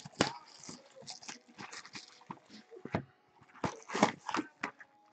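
Cardboard trading-card hobby boxes and their plastic wrap being handled and torn open by hand: a string of irregular crinkles, scrapes and light taps.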